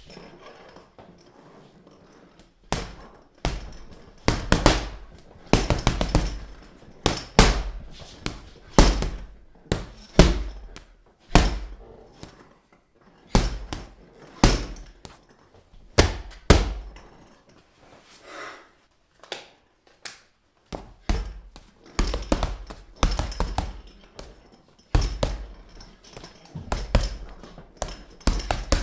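Fists punching a heavy punching bag: dull thuds in irregular combinations, often two or three quick hits followed by a short pause. After a quieter stretch at the start, the hits come steadily, with another brief lull a little past the middle.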